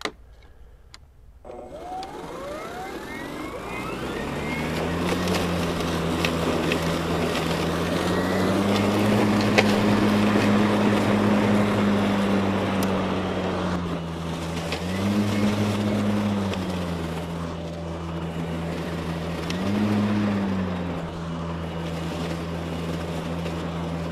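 RYOBI 40V HP 21-inch Whisper Series cordless mower starting about a second and a half in, its brushless motor and blade spinning up with a rising whine, then running steadily while cutting grass. Its pitch rises three times as the motor speeds up under load in thick grass.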